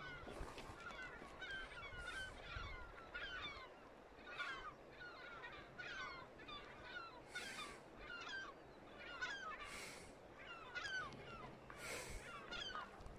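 Birds calling: a quick, overlapping run of short falling calls that keeps going, faint over a low rush of noise.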